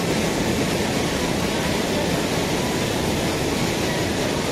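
A heavy curtain of water pouring down from a height into a concrete chamber: a loud, steady rushing noise.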